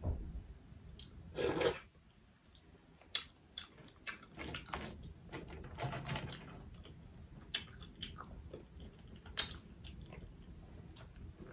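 Boiled crawfish shells cracking and peeling in the hands, mixed with close-up chewing. Scattered crackles and clicks run throughout, with one louder burst about a second and a half in.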